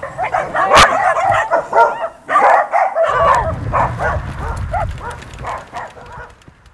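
A pack of huskies yelping, yipping and howling excitedly all at once, many calls overlapping, with a sharp click about a second in. The noise fades out near the end.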